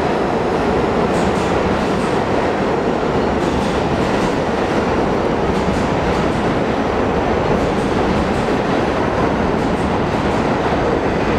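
New York City subway train running through an underground station: a loud, steady rumble of wheels on rail with a few faint clicks from the rail joints.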